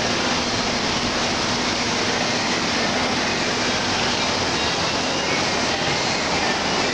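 American Flyer S-gauge model train running on the layout's track: a steady rumble and whir that holds without a break.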